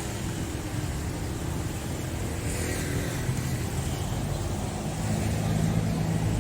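A motor vehicle's engine running close by: a steady low hum that grows a little louder about five seconds in.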